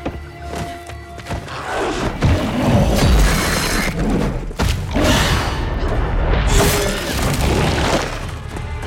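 Film score music mixed with action sound effects: held tones at first, then from about two seconds in a loud, dense layer of thuds and crashes that eases near the end.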